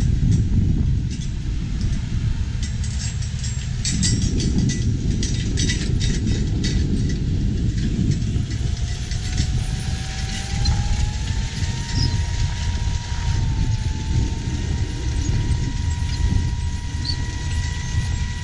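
Tractor pulling a 16-row corn planter through the field: a steady low diesel rumble with scattered clatter in the first half. About halfway through, a thin whine rises in pitch and then holds steady.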